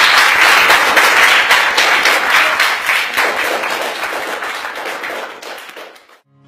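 Audience of students applauding, loud at first and dying away gradually before cutting off abruptly near the end.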